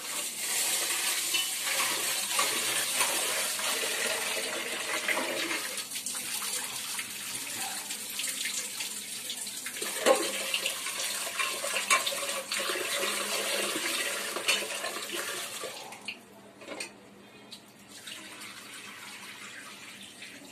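Tap water running into a vessel while roasted rice and moong dal are rinsed by hand, with a few clinks of the pot. The water stops about three-quarters of the way through.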